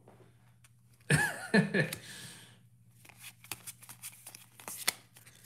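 Pokémon booster pack's foil wrapper torn open, a loud crinkling, squeaky tear about a second in lasting over a second. Then a run of quick light clicks and rustles as the trading cards are slid and handled.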